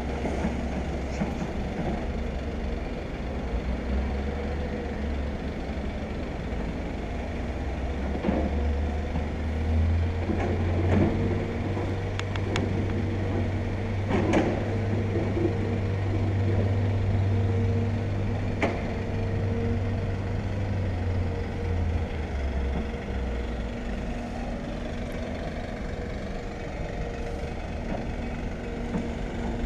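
Diesel engine of an excavator running steadily with a low hum that swells for a while in the middle, with a few sharp knocks between about 8 and 19 seconds in.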